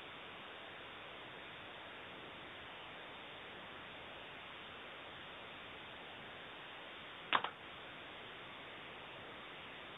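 Steady low hiss of recording noise, broken once about seven seconds in by a sharp click or knock with a smaller one right after it.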